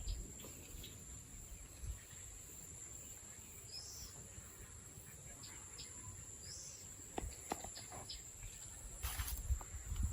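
Quiet rural pondside ambience: a steady high-pitched insect drone runs underneath, and a bird gives a short chirp twice. Scattered light clicks and a brief rustle come near the end.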